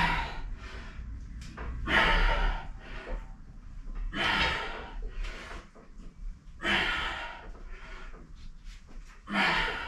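A man breathing hard and forcefully through five pull-ups, one loud huffing breath with each repetition, about every two and a half seconds.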